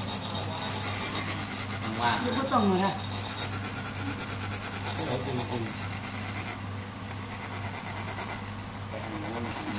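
Chak-pur, a ridged metal sand funnel, rubbed with a metal rod in a continuous rasping rhythm, the vibration trickling coloured sand out of its tip.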